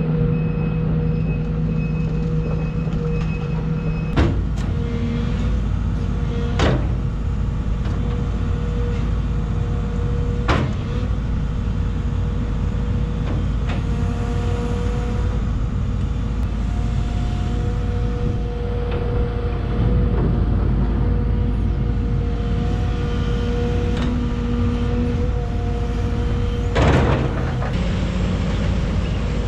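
Link-Belt 210 excavator's diesel engine running as the machine tracks and swings, with a steady whine and a few sharp knocks. Its travel alarm beeps for the first few seconds.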